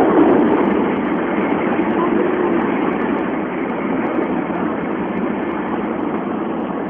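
Steady rushing noise inside the cabin of a Tokaido Shinkansen bullet train running at speed.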